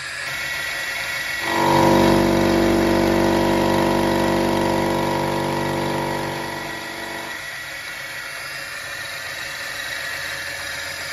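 Small milling machine running, its end mill cutting a metal block held in a vise. About a second and a half in, the cut sets up a loud, steady pitched ring that lasts about six seconds, then the machine runs on more quietly.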